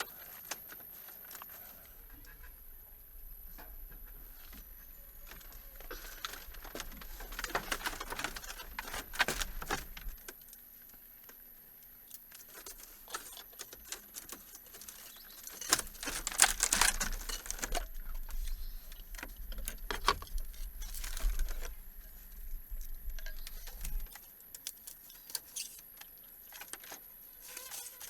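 Irregular clicks, taps and rustling, as of hands handling things, busiest in two stretches that each come with a low rumble.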